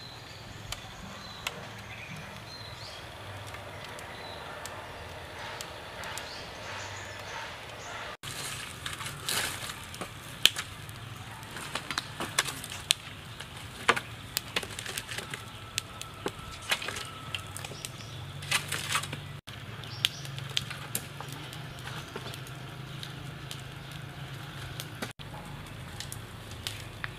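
Log fire burning in a pit, crackling and popping with scattered sharp pops, thickest through the middle and sparser toward the end.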